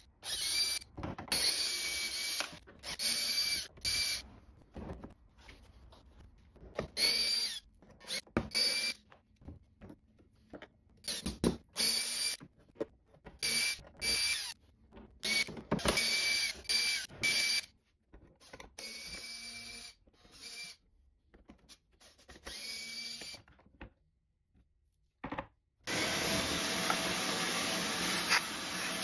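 Cordless drill-driver with a long Torx security bit whining in many short bursts with pauses between them, backing screws out of a lawn mower's plastic housing.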